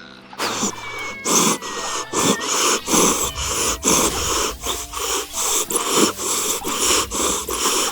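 A small animal's rapid, wheezy breathing or sniffing, in short hissy puffs about two a second.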